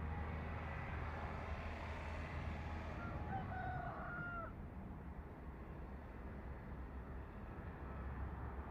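A rooster crowing, its drawn-out call held for about a second and a half beginning about three seconds in, with fainter calls before it, over a steady low rumble.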